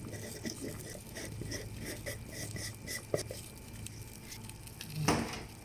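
Pot of chicken, carrots and potatoes simmering: faint soft ticking a few times a second over a steady low hum, with a short rush of noise about five seconds in.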